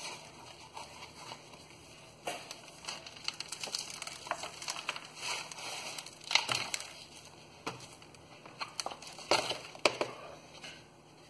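Thin black plastic nursery pot being squeezed and worked off a pepper plant's root ball: irregular crackling and crinkling of the flexing plastic, loudest about six and a half and nine and a half seconds in.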